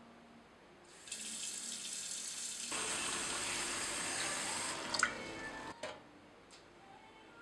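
Kitchen tap running into a stainless steel saucepan in a sink, filling it with water. The stream starts about a second in, sounds fuller from about three seconds as the water collects in the pan, and cuts off just before six seconds, with a click shortly before it stops.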